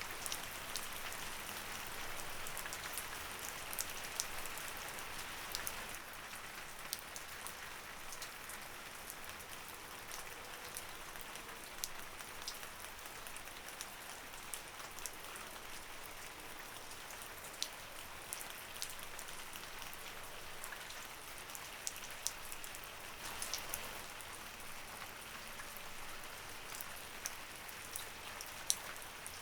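Light rain falling steadily, a soft hiss with many scattered sharp drip ticks of single drops hitting a surface.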